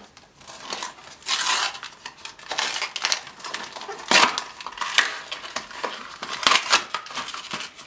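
An SD card's cardboard retail box being opened and its inner card-and-plastic insert slid out by hand: irregular rustling, scraping and sharp clicks of cardboard and plastic.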